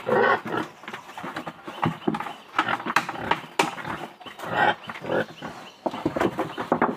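Pigs grunting in a run of short, irregular calls, one after another.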